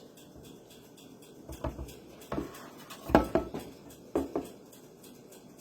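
A kitchen utensil clinking and knocking against a dish while scooping filling into chicken breasts, a few light taps in small clusters.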